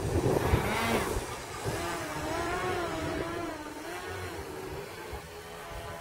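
The motor and contra-rotating propellers of an NPM Fury 3D radio-controlled model plane whining in flight, the pitch rising and falling several times. Wind rumbles on the microphone in the first second or so.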